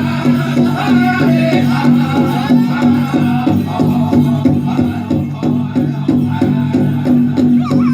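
Powwow drum group performing a chicken dance song: a steady beat on a big drum, about three strokes a second, under high-pitched group singing.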